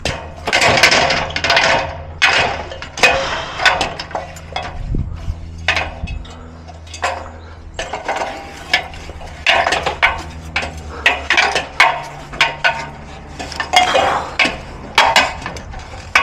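Aluminium extension ladder being climbed: irregular metallic clanks and knocks from boots and a hand tool striking the rungs, about one or two a second, over a steady low hum.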